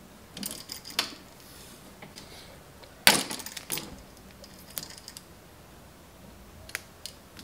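Vinyl electrical tape being pulled off its roll and wrapped around a light switch's screw terminals, with scattered light clicks and rustles of handling and one loud rasping pull of tape about three seconds in.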